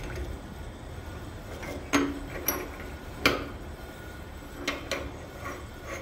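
Metal clinks and knocks from a brass valve and threaded steel pipe fittings being handled and threaded into place by hand: about half a dozen sharp taps, some with a short ring, the loudest about three seconds in, over a steady low hum.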